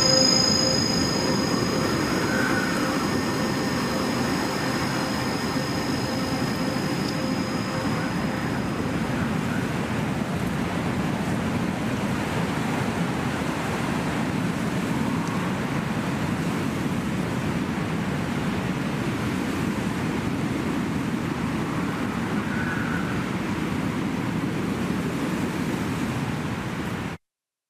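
Steady rushing noise at the close of a dungeon synth track, with the last held synth notes fading away over the first several seconds; the sound cuts off abruptly near the end.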